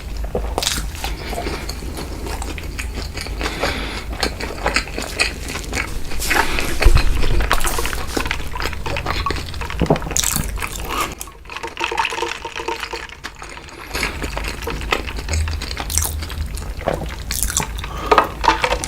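Close-miked mukbang eating sounds: wet mouth noises and chewing, with irregular clicks. A louder stretch comes about two thirds of the way through the first half, then a brief lull.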